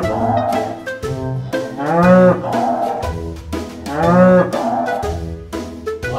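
A cow mooing twice, about two seconds apart, each call rising and then falling in pitch, over background music with a steady beat.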